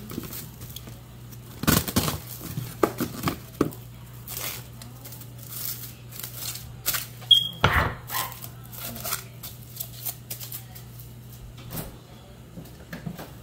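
Clear plastic bag crinkling and rustling as a cut half squash is slid into it and lifted off a wooden cutting board, with irregular crackles and a few knocks. A steady low hum runs underneath.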